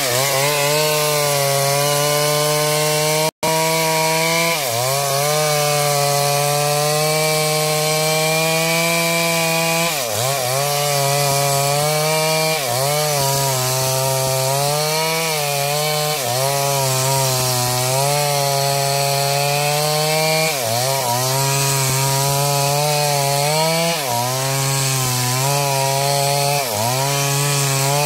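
Stihl MS 382 two-stroke chainsaw running at high revs and cutting into wood. Every few seconds its pitch sags briefly as the chain bogs under load, then climbs back.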